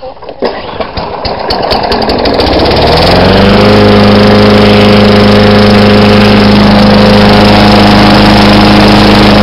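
A Yard Machines push mower's 4 hp Tecumseh engine being pull-started and catching on the third pull. About two seconds in it fires, its pitch rises as it speeds up, and then it runs steady and loud at full speed.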